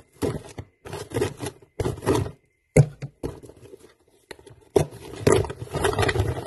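Scissors snipping and cutting into a package: a run of short cutting and rustling sounds with one sharp click about three seconds in. This is followed by longer rustling and scraping as the packaging is pulled open and handled.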